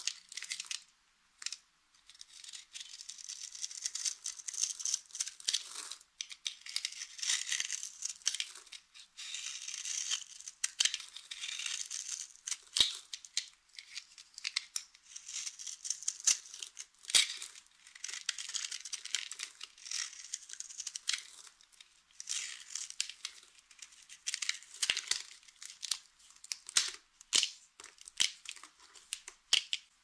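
A utility knife blade scraping and cutting into bars of dry soap: crisp crunching and crackling in repeated strokes as flakes and crumbs break off, with brief pauses between strokes and now and then a sharp snap.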